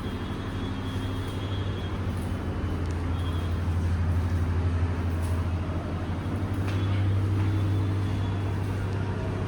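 An engine running steadily, a low even hum with a slight swell in level a few times.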